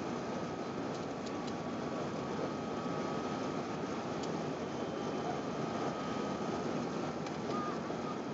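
Steady cabin noise inside a Qantas Airbus A380 airliner: an even rush of engine and airflow noise, with a faint steady whine and a few faint clicks.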